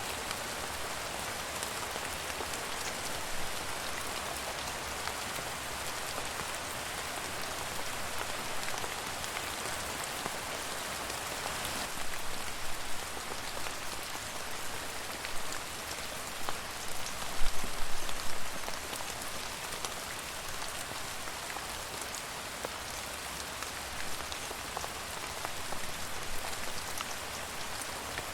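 Steady rain falling, an even hiss with scattered individual drops ticking through it. A few louder drop impacts stand out about halfway through and again around two-thirds of the way in.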